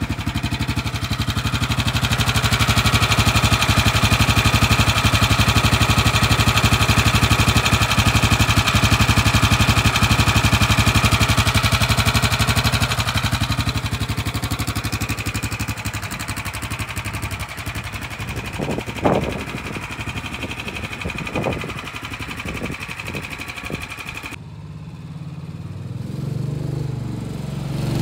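A 301cc single-cylinder Predator gas engine, fitted to a converted 1972 Taylor-Dunn utility cart, idling steadily with rapid, even firing pulses. Two short sharp rises stand out about two-thirds through. Near the end the sound drops and the engine is heard farther off, growing louder as it comes closer.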